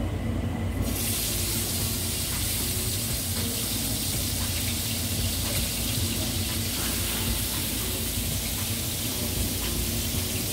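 Pieces of raw cow's brain sizzling as they are laid into a hot frying pan to sear, the hiss starting about a second in and holding steady.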